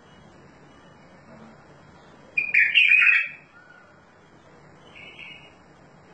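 A bulbul singing. A loud, warbled phrase of about a second comes a little under halfway through, then a short, quieter note near the end.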